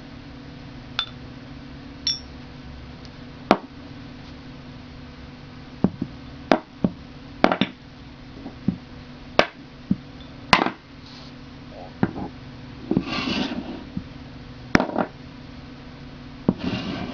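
A neodymium magnet and copper pipe being handled: about a dozen irregular sharp clicks and metallic clinks, a few ringing briefly, with a short scraping rattle about two-thirds of the way through, over a steady low hum.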